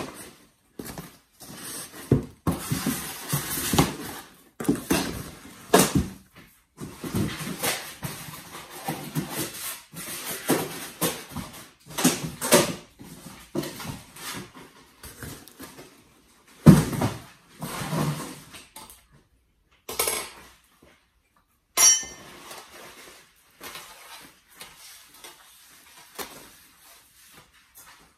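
Packing paper and a cardboard box rustling and crumpling in irregular bursts while a porcelain dinner set is unpacked, with a few sharp knocks and clinks.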